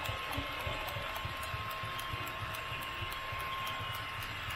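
Model train wagons rolling past on the track, their wheels making a rapid, even clatter over the rail joints, with a steady thin hum under it.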